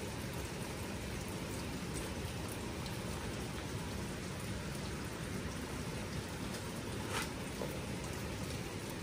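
Steady hiss of falling rain, with a faint tap about seven seconds in.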